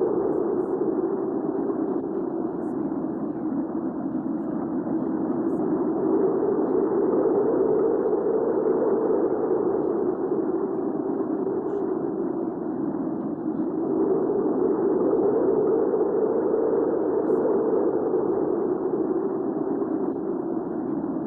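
Recorded hurricane wind, a steady rushing sound that swells in pitch and loudness twice, about a quarter of the way in and again past the middle.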